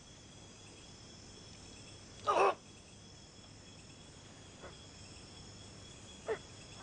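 Steady chirring of crickets in a night-time ambience. A short, louder sound breaks in about two seconds in, and two fainter brief sounds follow later.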